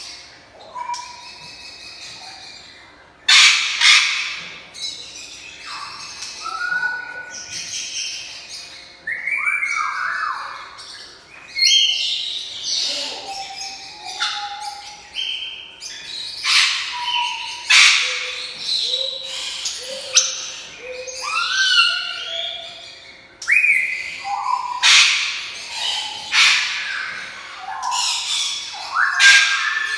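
African grey parrot calling: a varied run of whistles that glide up and down and short chirps, broken every few seconds by loud harsh squawks.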